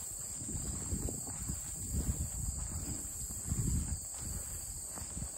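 A steady chorus of field insects, crickets or the like, keeps up a high even buzz, with irregular low rustling swells over it, loudest about two seconds in and again a little after three and a half seconds.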